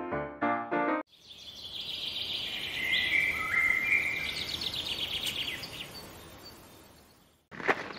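A channel-logo sound that swells up and fades away: a hiss with high, bird-like chirps and a fast trill in the middle. Piano music cuts off about a second in, and footsteps start near the end.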